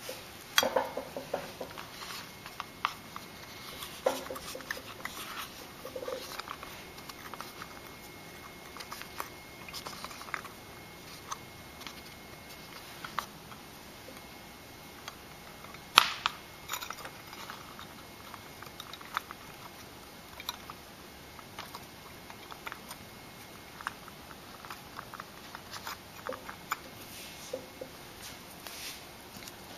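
Irregular small clicks, taps and rustles of hands handling wires and fittings on a neon sign board, with one sharper click about halfway through.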